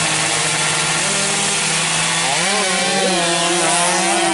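Two-stroke 116 cc underbone drag bike engines held at high revs on the start line with a steady buzzing drone; about two seconds in the pitch wavers and climbs as the bikes launch and accelerate away.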